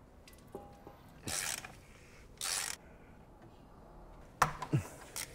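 A ratchet wrench cracking loose a car's oil drain plug: two short rasping bursts of ratcheting about a second apart, then a sharp click and a brief squeak near the end as the plug is worked out by hand.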